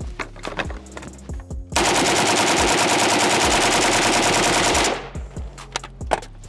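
Pioneer Arms 5.56 AK rifle firing one continuous full-auto burst of about 30 rounds, emptying the magazine in about three seconds, roughly ten shots a second. Short metallic clicks and clatter of handling come before and after the burst.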